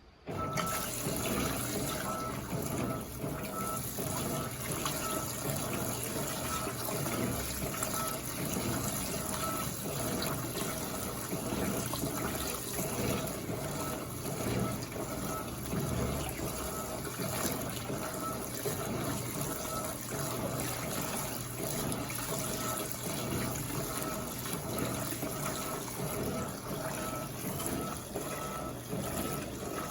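LPE 16 washing machine filling with water, the inflow starting abruptly about half a second in and running steadily, with a faint repeating high tone over it.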